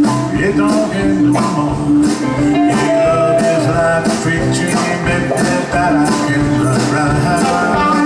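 Live blues-rock band playing with a steady beat: electric and acoustic guitars, bass guitar and keyboard.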